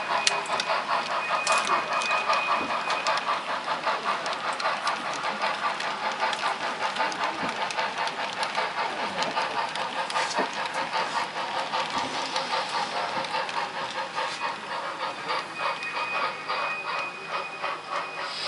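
Sound-equipped model steam locomotive running while switching cars, its sound system giving a quick, steady chuff. A thin, steady high tone comes in briefly near the start and again near the end.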